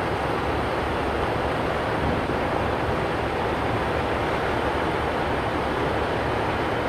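Diesel engines of semi-trucks running steadily, an even rumble that does not change.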